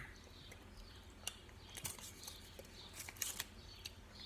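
Faint, scattered clicks and rustles, a few at a time with a small cluster near the end, from handling and eating a Kinder chocolate bar.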